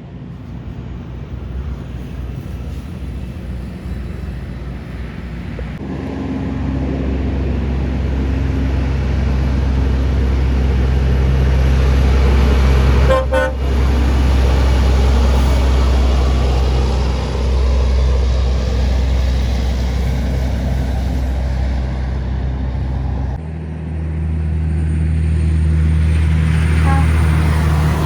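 Heavy trucks' diesel engines running as they pass, louder from about six seconds in, with a brief horn toot around the middle. The engine sound changes abruptly near the end.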